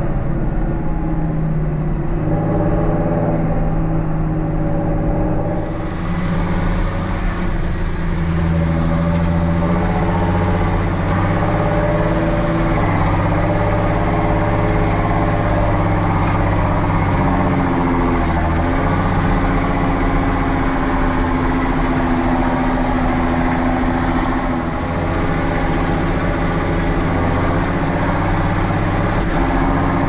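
Tractor diesel engine running steadily under load, its engine note dropping and picking up a few times.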